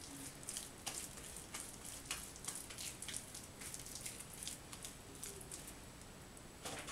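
Soft, oil-greased yeast dough being rolled and pressed between the hands, giving faint, irregular wet sticky smacks and squelches. A slightly louder soft smack comes near the end.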